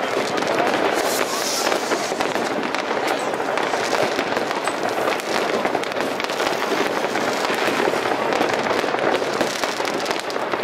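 Many fireworks and firecrackers going off at once: a dense, continuous crackle of overlapping bangs and pops.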